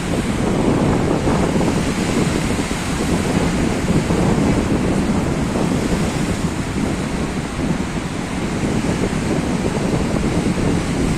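Sea waves washing against the shore in a steady rushing wash, with wind buffeting the microphone.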